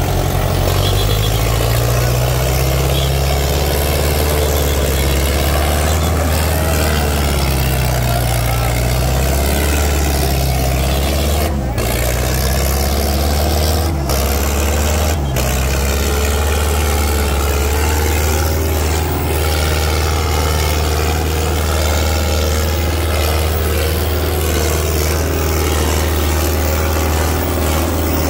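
Diesel tractor engines running hard in a tractor pulling contest, a loud steady low drone whose pitch wavers slightly.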